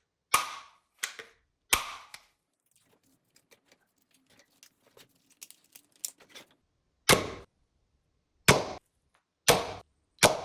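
Sharp plastic snaps and clicks from toy guns being worked: three in the first two seconds, faint small clicks and rattles in a quieter stretch, then four more loud snaps near the end.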